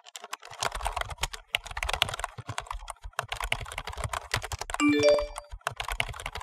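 Fast typing on a computer keyboard, a dense run of key clicks. About five seconds in, a phone's notification chime of three quick rising notes sounds over the typing.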